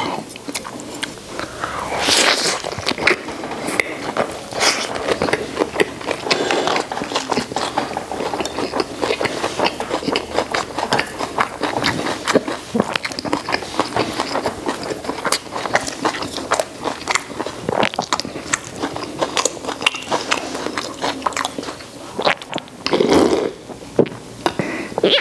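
Close-miked chewing and crunching of roast duck rolled in a pancake, with chopsticks clicking and scraping on dishes. Near the end come a few louder gulps of cola from a bottle.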